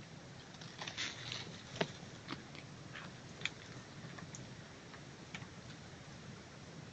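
Faint steady hum of a wild honey bee colony clustered on its comb, with scattered sharp clicks and ticks, the loudest about two seconds in.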